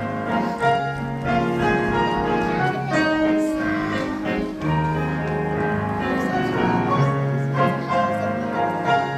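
Instrumental music with piano-like keyboard notes over sustained low tones.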